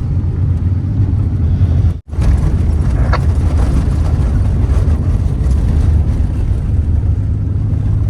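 1992 Holden VP Commodore on the move: a steady, loud low engine and road rumble. The sound cuts out for an instant about two seconds in.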